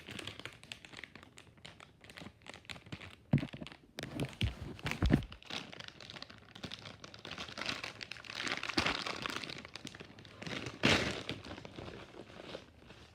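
Toy packaging being torn and crinkled open by hand, with scattered clicks and rustling, and a few louder thumps about three to five seconds in and again near eleven seconds.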